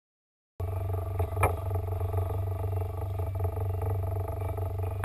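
Boat's outboard motor running steadily, a low drone starting about half a second in, with a sharp knock about a second later.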